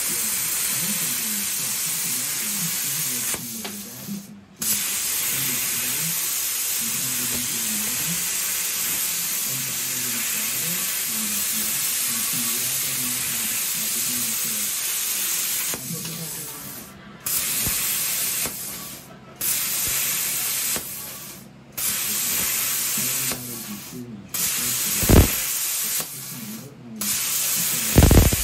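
CNC plasma cutter's arc hissing steadily as the torch cuts through sheet metal, with a low wavering tone underneath. The arc cuts out briefly about four seconds in, then in the second half stops and restarts several times as separate shapes are cut. Two sharp pops come near the end.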